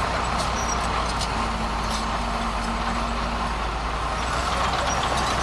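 Heavy diesel earthmoving machinery running steadily.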